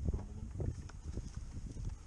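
Handling noise from the shotgun carrying a barrel-mounted camera as it is moved: scattered soft knocks and rustling of dry corn stalks, over low wind rumble.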